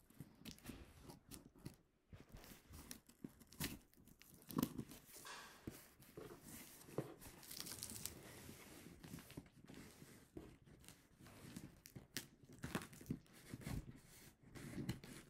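Packing tape on a cardboard box being slit with scissors and then peeled and torn off the cardboard, with irregular scrapes, crinkles and taps against the box.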